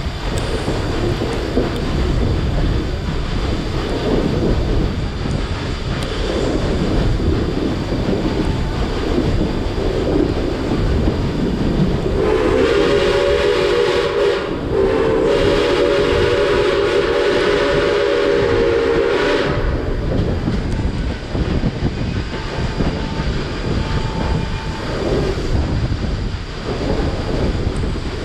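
Steam locomotive C&O 1309's whistle blowing two blasts about twelve seconds in, a short one of about two seconds and then a longer one of about four and a half seconds, over the steady rumble and clickety-clack of the passenger car rolling on the rails and wind on the microphone.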